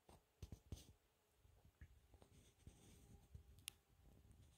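Near silence, with soft rustles, low thumps and one sharp click from a phone being handled. Under them, faint distant wolf howling held as a low steady tone.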